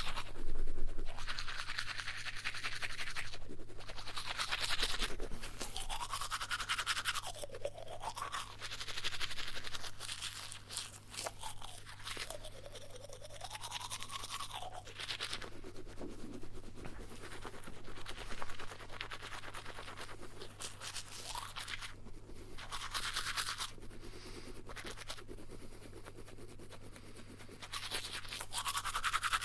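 Toothbrush scrubbing teeth in quick back-and-forth strokes, in spells of a few seconds broken by short pauses. The pitch of the scrubbing rises and falls as the brush moves around the mouth.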